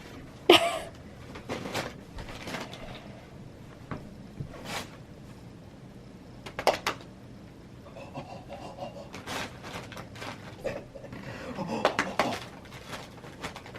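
Scattered light knocks, taps and clatter of household objects being handled, with one sharp loud hit about half a second in.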